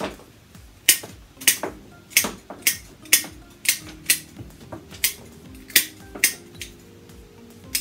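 Sharp clicks and snaps, irregularly spaced at about two a second, as flower stems are handled and added into a hand-tied bouquet, over faint background music.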